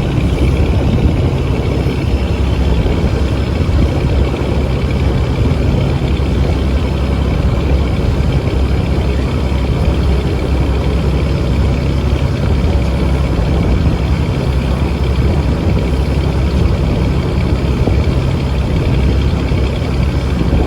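Fishing boat's engine running steadily under way, a constant low drone mixed with a rushing haze.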